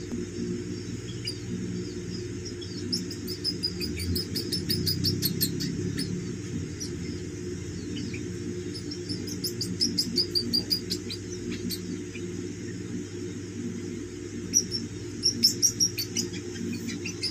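Baby Indian palm squirrels chirping while they feed from a spoon: quick runs of high-pitched squeaks in several bouts, over a steady low hum.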